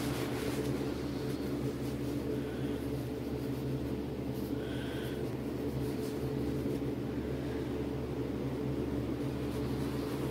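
Steady low machine hum made of several constant low tones under a light hiss, with a brief faint higher tone about halfway through.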